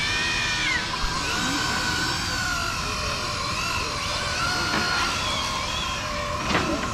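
High-pitched motor whine from radio-controlled drag cars being run up, several pitches rising and falling together, with a sharp knock near the end.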